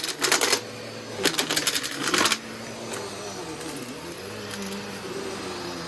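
Bissell Powerforce Turbo Pet upright vacuum running over a dirty carpet, its motor humming steadily with a slightly wavering pitch. Two bursts of rapid rattling clicks in the first half as debris is drawn up through the nozzle.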